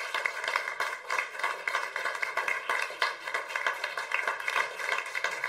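Audience applauding: many hands clapping in a dense, even patter.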